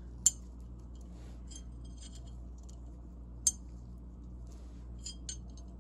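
Small steel ratchet parts clinking as a pawl is picked out of the head of a Proto 5449-14BL 1/2-inch drive ratchet. Two sharp metallic clicks about three seconds apart, with lighter ticks between them and two more near the end, over a low steady hum.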